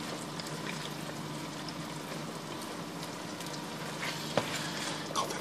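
Chicken, onion and capsicum in satay sauce sizzling and bubbling in a hot frying pan as a spatula stirs it through, with a soft knock about four seconds in.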